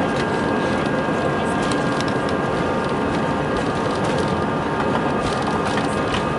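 Airliner jet engines at takeoff thrust heard inside the cabin during the takeoff roll. A steady rush of noise carries several whining tones held level, with faint ticks and rattles as the wheels run along the runway.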